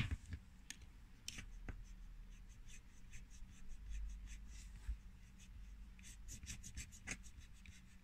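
Snap-off utility knife blade cutting a fluted wooden dowel flush with a particleboard cupboard door: a string of faint, short scraping strokes, a little louder about a second and a half in and near the end.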